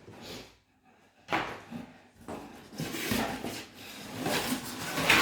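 A cardboard parcel box being handled and opened: scraping and rustling with a sharp knock about a second in and several more knocks later on.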